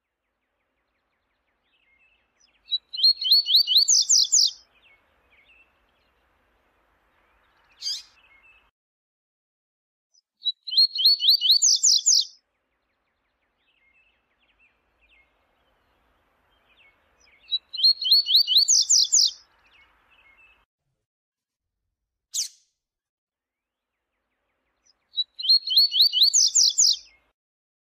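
Double-collared seedeater (coleiro) singing: four short songs of quick, high notes, each about two seconds long and about seven seconds apart, with a single short call between some of them.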